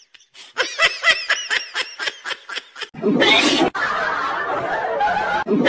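Snickering laugh: a fast run of short giggles, each rising and falling in pitch. About three seconds in, a loud hissing rush sets in and carries on as a steady noise.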